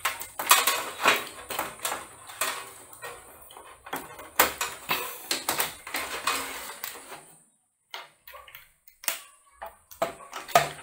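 Clicks, knocks and metallic clatter of hands working inside a steel desktop PC case as its power connectors are unplugged and the motherboard is lifted out. There is a short quiet gap about three-quarters of the way through, then a few more clicks.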